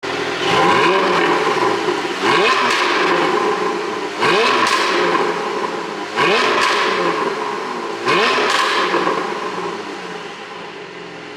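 Porsche 718 Boxster GTS's 4.0-litre naturally aspirated flat-six being blipped five times, about two seconds apart. Each rev falls back with sharp pops and crackles on the overrun from a tuned ECU's pop-and-crackle map.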